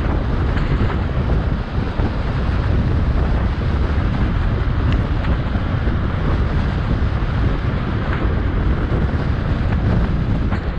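Wind buffeting the microphone: a loud, steady, low rushing noise, with a few faint ticks scattered through it.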